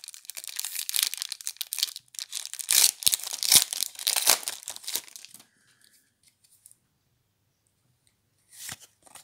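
Foil wrapper of a Magic: The Gathering booster pack being torn open and crinkled by hand. The tearing lasts about five seconds, then stops, and a short rustle follows near the end.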